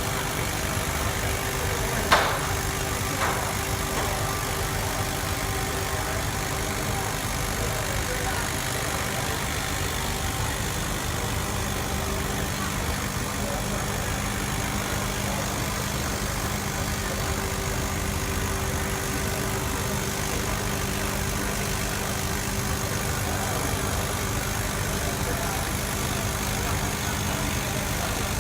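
CO2 laser cutting machine running while it cuts acrylic: a steady mechanical hum with a low drone, and two sharp clicks about two and three seconds in.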